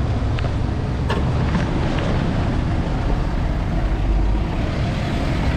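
Street traffic and a steady low rumble, picked up by a camera mounted on a moving bicycle's handlebars, with a few light clicks in the first two seconds.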